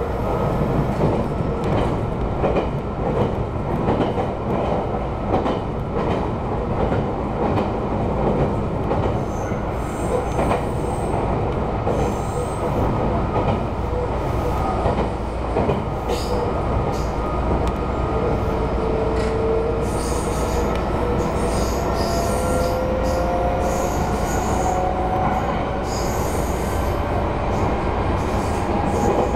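Meitetsu 3150 series electric train running, heard from inside the driver's cab: a steady rumble of wheels on rail with scattered clicks. In the second half a traction-motor whine rises slowly in pitch as the train picks up speed.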